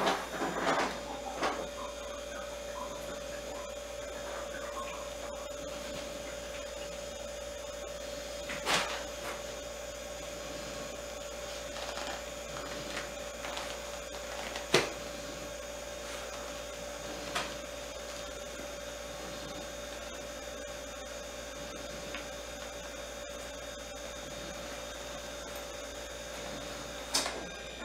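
An ice machine running with a steady hum that starts right at the beginning, with a few sharp clicks and knocks from handling a doll and its clothes on a table, the loudest about 15 seconds in.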